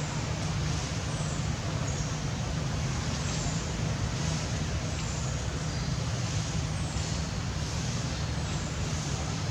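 Steady low rumble and hiss of background noise that does not change.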